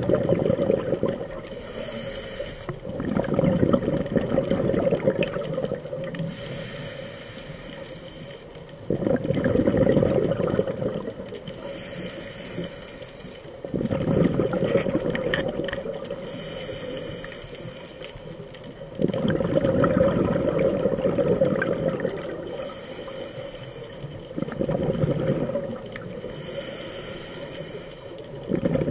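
Scuba regulator breathing underwater: about every five or six seconds a short hissing inhale, followed by a louder gurgling rush of exhaled bubbles.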